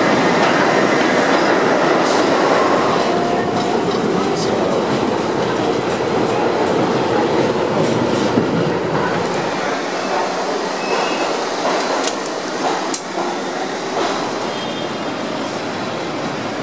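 New York City subway train pulling into an underground station and then running, a dense rumbling noise of wheels on rail that is loudest at the start and eases off, with a faint wheel squeal about three seconds in and a couple of sharp clicks later on.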